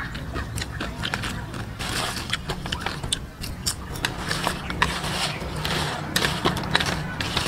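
Crispy small crabs being chewed: many sharp, irregular crunches and crackles of the shells.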